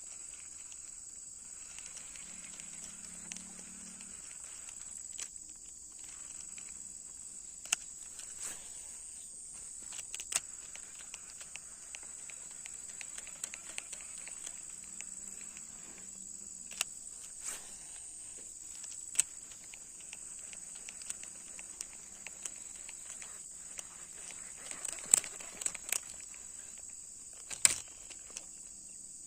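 Steady high-pitched insect drone, such as crickets, with scattered sharp clicks and taps, the loudest two a few seconds before the end.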